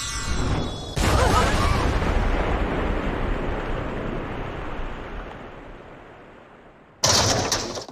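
Anime sound effect of a large explosion: a sudden blast about a second in, its rumble slowly dying away over several seconds, then another sharp loud hit near the end.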